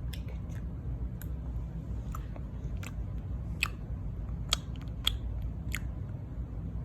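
A six-month-old baby smacking his tongue and lips as if eating, a string of short wet clicks about half a second to a second apart, over a low steady hum.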